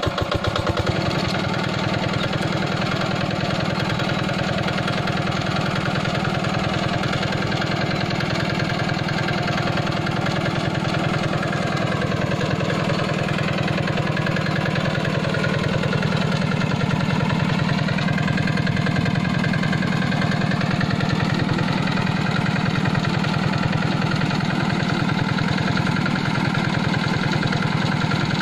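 Yanmar single-cylinder diesel engine, about 7 hp, running steadily on a trenching machine, with an even, rapid firing beat. Its speed dips slightly and comes back up about halfway through.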